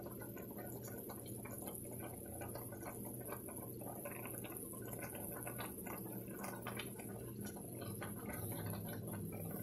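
Brown stew chicken simmering in a pan of sauce on the stove, many small irregular bubbling pops and sputters over a low steady hum.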